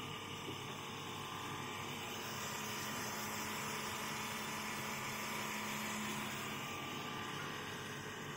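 Pet food extruder running steadily, its screw drive making a constant machine noise with an even hiss of steam as puffed pellets come out. A faint hum joins in for a few seconds mid-way.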